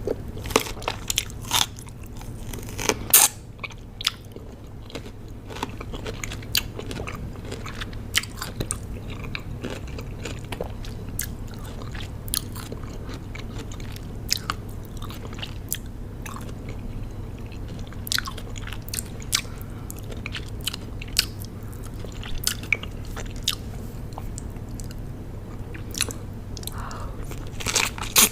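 Close-miked biting and chewing of raw cucumber: crisp, wet crunches scattered irregularly, with a few louder bites about three seconds in and again near the end.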